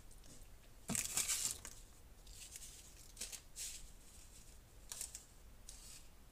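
A wrapper being torn open and crinkled by hand: one loud rip about a second in, then several shorter crinkles.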